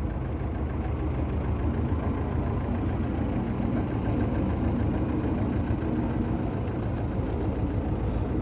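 Engine of a small open canal boat running at low speed as it passes close by: a steady, low, evenly pulsing drone, a little louder in the middle as the boat comes nearest.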